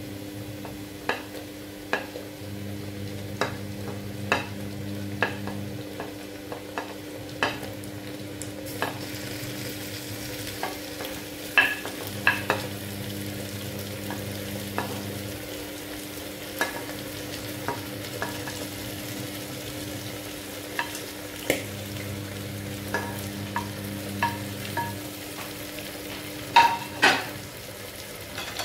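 Wooden spoon knocking and scraping as mutton liver pieces are pushed off a plate into a pressure cooker, with a steady sizzle of frying in hot mustard oil and onions underneath. The knocks come irregularly, the loudest two near the end.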